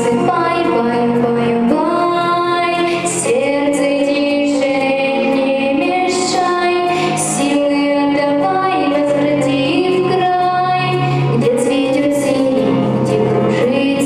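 A young female vocalist singing a song into a microphone over instrumental accompaniment, holding long notes.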